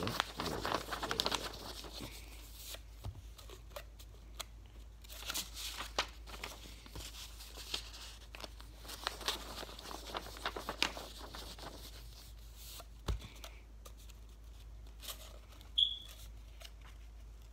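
A sheet of printer paper being rolled by hand into a tight tube, rustling and crinkling in bursts with small clicks. A sharp tap comes about thirteen seconds in, and a short high squeak near the end.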